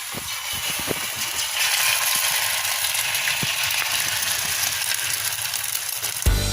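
Tuna-and-egg mixture sizzling and crackling in hot oil in a frying pan, starting as it goes in. Music comes in just before the end.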